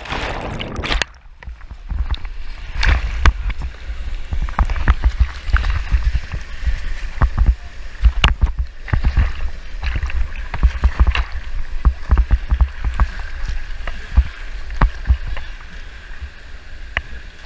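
Rushing whitewater heard from a raft, with many short sharp knocks and low thumps scattered through it.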